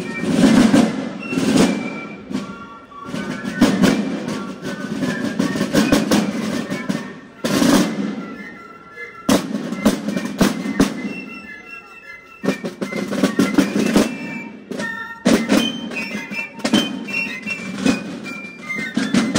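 Marching snare drums playing beats and rolls, with fifes playing a melody over them in places.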